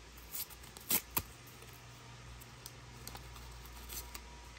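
Hands handling small paper and plastic packaging: a few sharp crinkling snaps, the two loudest close together about a second in, then softer ticks and rustles.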